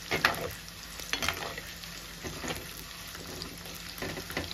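Small onions, garlic, green chillies and curry leaves sizzling in hot oil in a clay pot, stirred with a perforated steel spoon that scrapes against the pot about four times.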